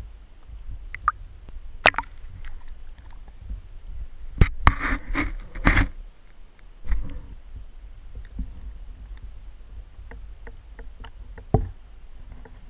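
Handling noise from a waterproof camera held underwater in shallow lake water: a low rumble with scattered clicks and knocks, and a louder run of knocks and scraping about four to six seconds in.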